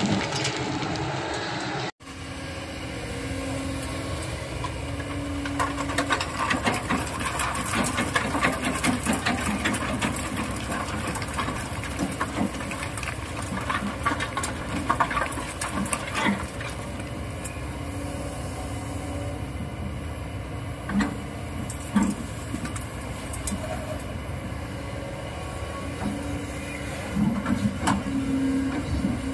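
Kobelco hydraulic excavator's diesel engine running steadily while its bucket dumps sand and rock into a dump truck's bed, the material clattering and rattling as it pours in. A few sharp knocks come about two-thirds of the way through, and short steady hums rise over the engine near the end.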